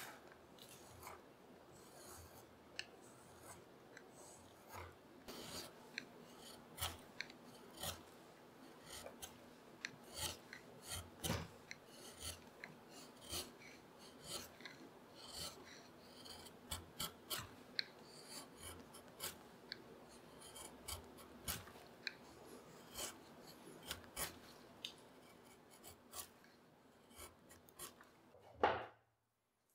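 Curved carving gouge slicing into beech by hand: short, crisp scraping cuts at an irregular pace as each shaving peels off. A louder thump comes near the end, then the sound drops away.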